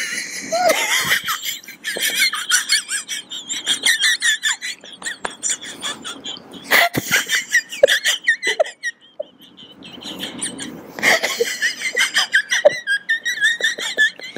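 Several people laughing hard together in high-pitched, wheezing bursts, with a short lull about ten seconds in before the laughter picks up again.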